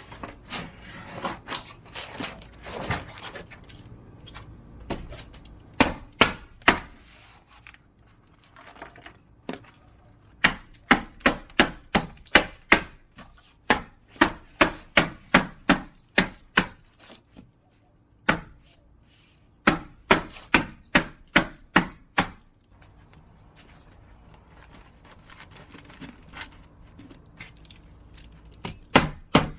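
Hammer driving nails into wooden boards: runs of sharp, evenly spaced blows, about two to three a second, broken by short pauses. Softer scraping and handling of wood comes first.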